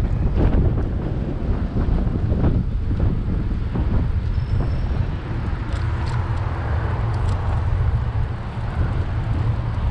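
Wind rumbling on the microphone of a moving bicycle, over city traffic noise. A faint steady hum comes in about four seconds in and fades out near the end.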